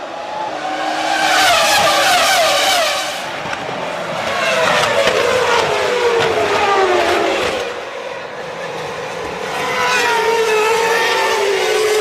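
Formula One V10 engines of cars passing one after another, the pitch climbing and dropping with gear changes and braking, in three waves of loudness.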